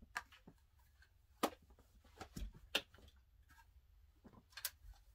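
Scattered light clicks and knocks, four or five in all, spaced roughly a second apart: handling noise from items being moved on a long-arm quilting frame.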